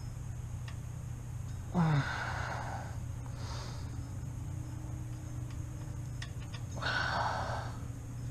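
A man grunts, his voice falling in pitch, about two seconds in, then breathes out hard, and exhales heavily again near the end. He is straining on a wrench while lying under a car. A steady low hum runs underneath.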